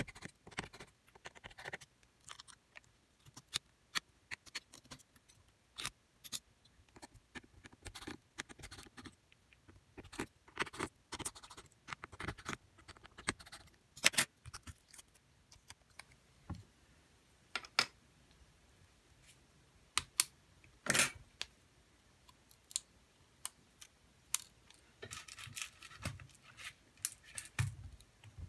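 Scattered small clicks, taps and scrapes of hands handling an opened Xiaomi Redmi 9 smartphone and its parts on a silicone repair mat, with a couple of sharper clicks about halfway and three quarters through and a stretch of scratching near the end.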